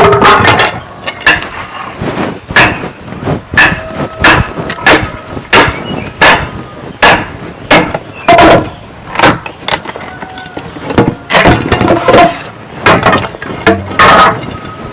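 A hand tool striking bamboo over and over, at an even pace of about three hard knocks every two seconds. Some knocks leave a short ring.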